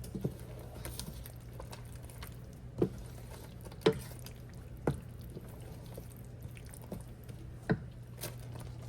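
Spinach being stirred into a creamy sauce in a pan, with wet squishing and about five sharp knocks of the utensil against the pan, over a steady low hum.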